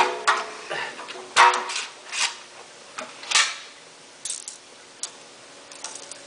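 Long cleaning rod being pushed through the open action into a .338 Lapua rifle barrel to probe for a lodged squib bullet, giving irregular metallic clicks and short scrapes, loudest near the start and about one and a half and three and a half seconds in.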